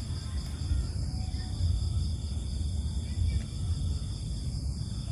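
Night insects, crickets, trilling in a steady high-pitched chorus, with a couple of brief breaks, over a continuous low rumble.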